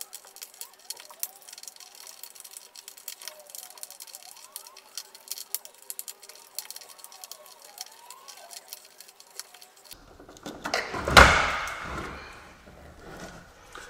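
Hand tools working at a car's headlamp mounting: rapid clicks and ticks with thin, warbling high-pitched chirps and no bass. About ten seconds in, a single loud knock rings out and fades over about a second.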